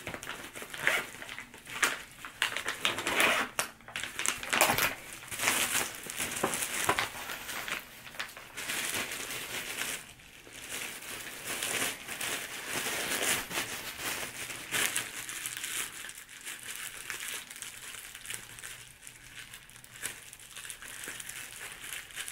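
Clear plastic bag wrapping a boxing glove crinkling and rustling as it is handled and opened: dense, irregular crackling, busier at first and quieter over the last several seconds.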